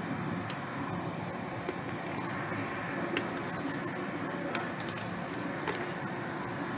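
A stainless pot of sea moss at a rolling boil on a gas stove: steady bubbling, with a few sharp ticks scattered through it. The sea moss is almost boiled down.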